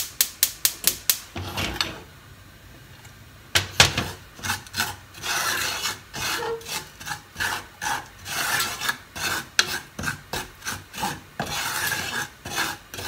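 Wooden spatula scraping and stirring brown sugar and water in an aluminium saucepan, in repeated rasping strokes from a few seconds in. A quick run of clicks comes near the start, before a short lull.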